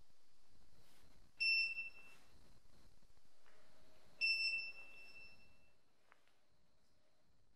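Electronic battery charger beeping twice: two short high-pitched beeps about three seconds apart.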